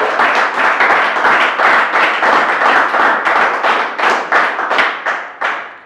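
Audience applauding, a dense patter of many hands clapping that thins out to a few scattered claps and dies away near the end.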